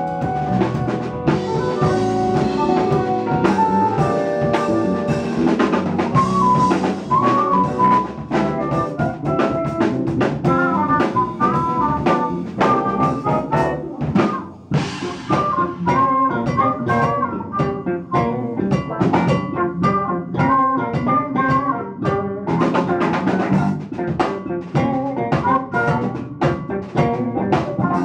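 A live jazz-funk band playing: drum kit, electric bass, electric guitar and keyboard, with a melodic lead line moving over the groove.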